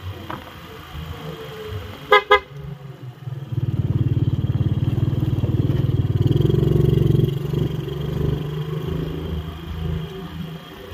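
Two quick toots of a motorcycle horn about two seconds in, then the motorcycle's engine runs louder for several seconds before easing off.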